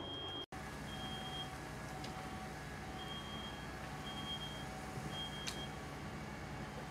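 A fire engine's diesel engine running steadily at the scene, driving the pump for the hose lines. Short high-pitched electronic beeps sound over it at irregular intervals, with fainter lower beeps between them.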